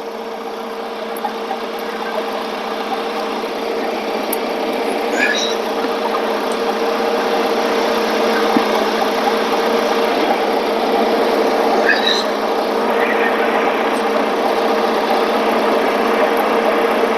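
Forklift engine running steadily, its even hum slowly growing louder, with a few faint short squeaks.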